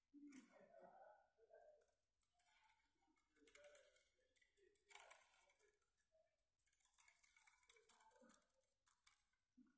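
Near silence, with faint scattered rustles and light clicks from handling a plastic bottle craft.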